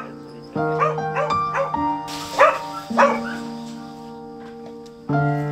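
Jindo dogs barking over background music with held chords: a quick run of short barks in the first second and a half, then two louder barks about two and a half and three seconds in.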